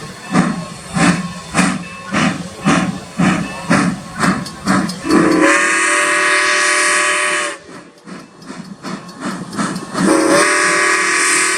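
Steam locomotive #475, a 4-6-0 ten-wheeler, chuffing about twice a second as it pulls out, then blowing its chime steam whistle: one long blast about five seconds in and a second beginning about ten seconds in, still sounding at the end.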